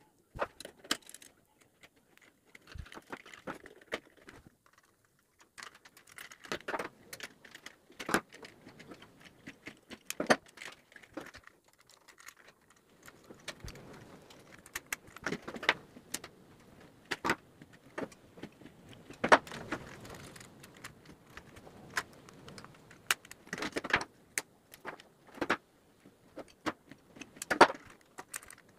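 Scattered small metallic clicks and taps with light rustling: a screwdriver working the brass terminal screws of wall sockets, and insulated wire being bent and pushed into the terminals.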